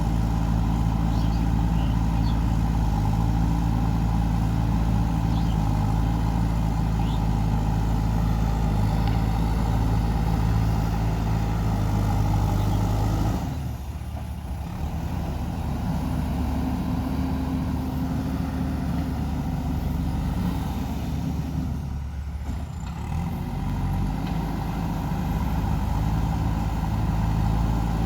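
JCB 3DX backhoe loader's diesel engine running steadily while working. Its sound drops and changes about halfway through, and dips briefly again later.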